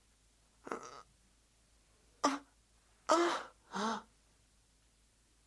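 An injured person's short groans and throat-clearing coughs as they come round, four brief vocal sounds.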